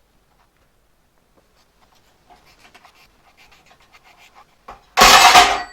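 Faint metal clicks and scraping of hands working on a band saw part, then about five seconds in a sudden loud burst of about half a second as a tensioned part springs loose "like a coiled spring", leaving a high metallic ringing note at the very end.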